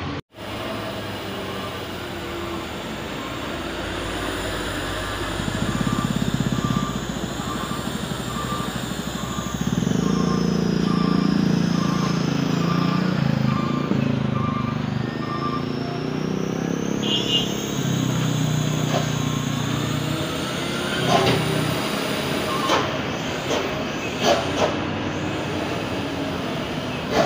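Heavy diesel trucks running under load as they climb a steep hairpin bend, the engine sound swelling about ten seconds in. A truck's reversing alarm beeps steadily through the middle, and there are a few short, sharp sounds near the end.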